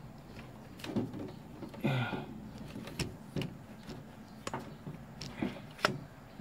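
Scattered knocks and clunks of a plastic rice cooker shell being handled and shifted, with a short scraping squeak about two seconds in.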